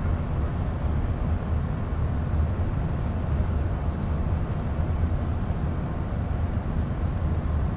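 Aircraft cabin noise on the approach to landing: a steady low drone of engines and airflow heard from inside the cabin.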